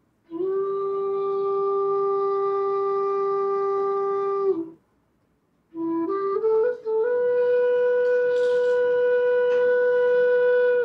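Punam Flutes G bass bansuri (bamboo flute) being played: one long, steady held note, a pause of about a second, then a few quick notes stepping up to a higher long held note.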